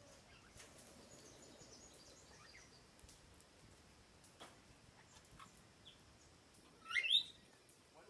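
Parrot calls: faint scattered chirps, then near the end one loud, short call that rises in pitch.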